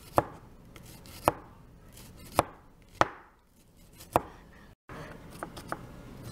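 Cleaver slicing shallots on a wooden cutting board: five sharp knocks of the blade on the board, about a second apart. After a brief gap near the end, lighter and quicker knife taps as the slicing goes on.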